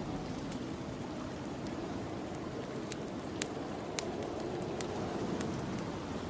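Wood fire crackling in a fireplace, with about eight sharp, irregular pops, over a steady low whoosh of snowstorm wind.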